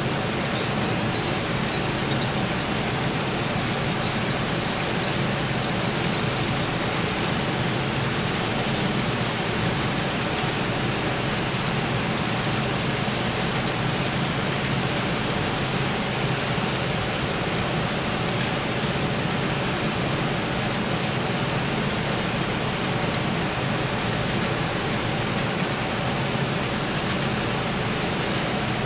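Model freight trains rolling along the layout's track: a steady rushing rumble of many wheels on rails, with a faint low hum underneath.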